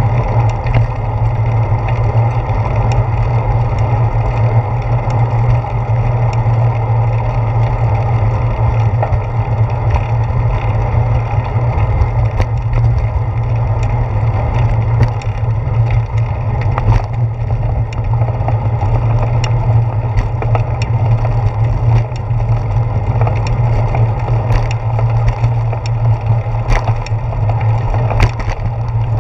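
Steady low rumble of a bicycle rolling over pavement, its vibration carried through the handlebar mount into the camera, with scattered small clicks and knocks from bumps in the path.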